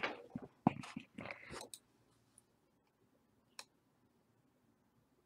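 Faint computer mouse clicks and handling: a few small clicks and rustles in the first second and a half, then one sharp click about three and a half seconds in, with near silence between.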